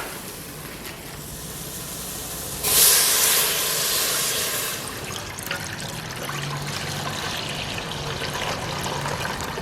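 Liquid poured into a hot frying pan: a sudden loud sizzling hiss about three seconds in that eases after a couple of seconds into a steady, quieter sizzle.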